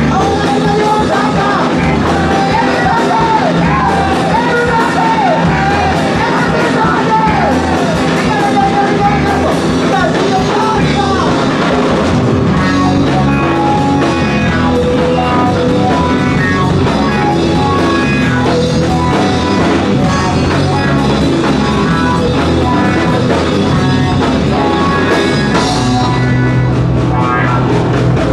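Live rock band playing loud: drum kit, electric guitar, acoustic guitar and keyboard, with singing over the first ten seconds or so.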